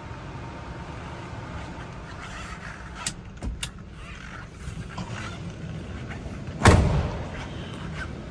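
A steady low rumble with a few light clicks, then one loud thump about two-thirds of the way through: the door of a 1971 Chevrolet Camaro being shut.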